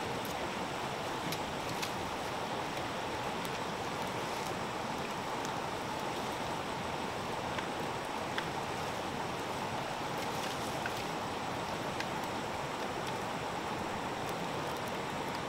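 Burning bamboo torch: a steady hiss with occasional faint crackles.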